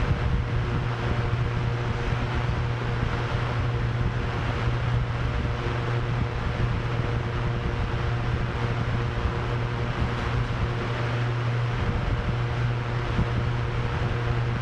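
Drone propellers whirring at a steady, unchanging pitch, with a low hum and a few fainter higher tones, under a constant rush of wind.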